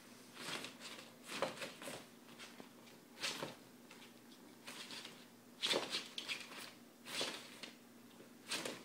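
A big dog and a kitten playing on a wooden floor: short, irregular scuffling and snuffling noises, roughly one a second, over a faint steady hum.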